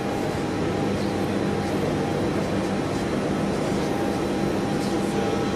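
Steady background hum and rush of a large aircraft maintenance hangar, a continuous machinery noise with a few faint steady tones and no distinct events.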